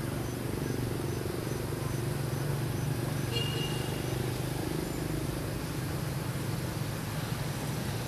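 A steady low hum, like a distant engine, runs throughout. Over it come rapid short high pips, about three a second, in the first three seconds or so, and a single brief high whistle a little over three seconds in.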